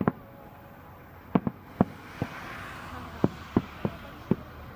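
Aerial firework shells bursting about 2 km away: about nine sharp, irregularly spaced bangs, with a soft hiss in the middle.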